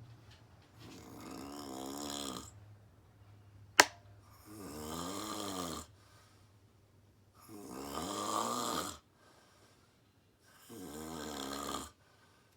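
Woman snoring in her sleep: four long snoring breaths about three seconds apart. A single sharp click, the loudest sound, comes just before the second snore.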